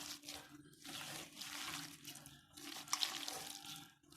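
Hands squeezing and mixing sliced onions into wet bajji batter in a bowl: a few long wet, squishing strokes with short pauses between them.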